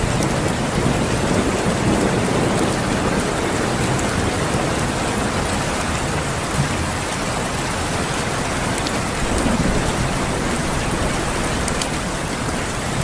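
Steady heavy rain falling, with a continuous low rumble of thunder beneath it and a few sharp drop ticks.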